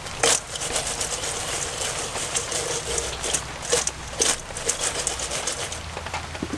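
Fried giant water bugs clattering and scraping against a stainless steel bowl as they are tipped out: a string of short, dry clicks and knocks over a steady hiss.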